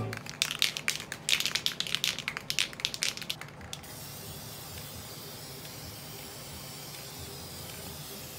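White Krylon ColorMaxx aerosol spray paint can. For about four seconds there are rapid sharp rattling strokes, then a steady spray hiss as paint goes onto the wooden frame.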